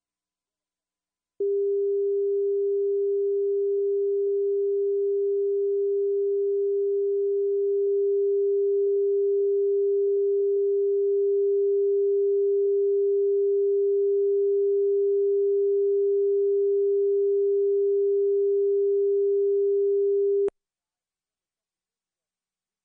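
Broadcast line-up test tone, the steady sine tone that runs with colour bars at the head of a programme tape: one unchanging pitch, starting about a second and a half in and cutting off suddenly near the end.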